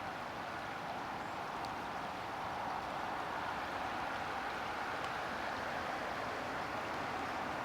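Steady rushing of a river in flood: an even, unbroken wash of water noise.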